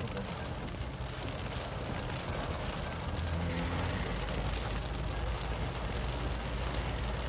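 Steady rain on a moving car's roof and windscreen, heard from inside the cabin, over the low hum of the engine and tyres on the wet road.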